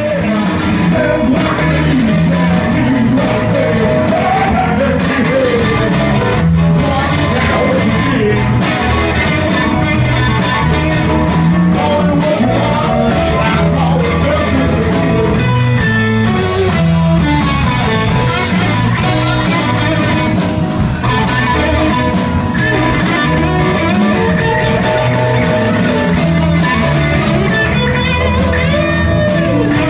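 Live blues-rock band playing: electric guitar, bass guitar, keyboard and drums, with singing.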